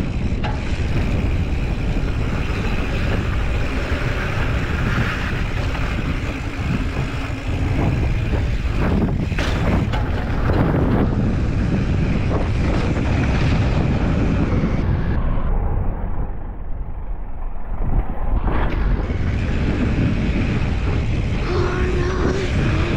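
Wind rushing over the camera microphone and a mountain bike's knobby tyres rolling fast over a dry dirt trail, with a few knocks as the bike hits bumps.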